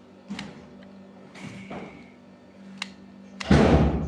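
Plastic clicks and scraping as wireless earbuds are pulled out of their plastic charging case, with a much louder scuffing handling noise about three and a half seconds in.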